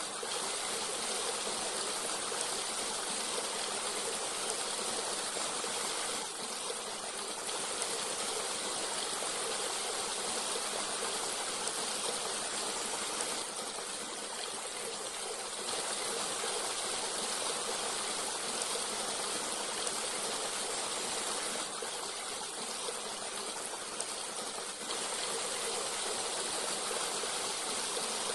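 Forest stream running steadily: an even, unbroken wash of flowing water.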